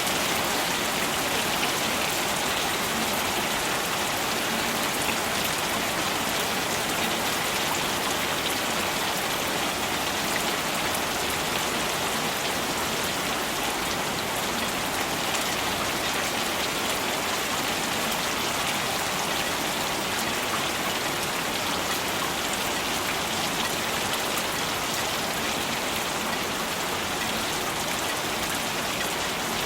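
Steady rain falling, a continuous even hiss of drops hitting surfaces with fine individual drop patters, unchanging in strength throughout.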